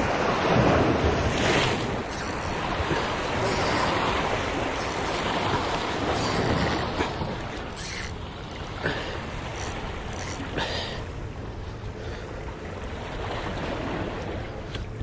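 Sea surf washing over the rocks, with wind on the microphone. The wash is louder in the first half and eases off, and there are a few brief knocks and rustles along the way.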